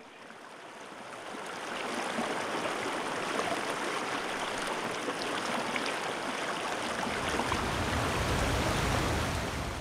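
Steady rushing water that fades in over the first couple of seconds, with a deeper rumble swelling near the end.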